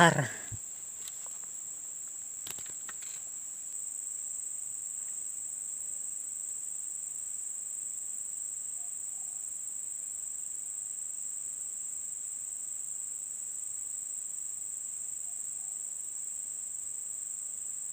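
Steady high-pitched insect chorus, one unbroken shrill drone.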